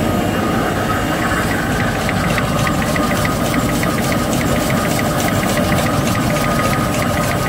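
XY-GU-20A box-drawing facial tissue folding machine running: a steady mechanical hum with a faint whine. From about a second and a half in, a fast, even clicking comes at about five clicks a second.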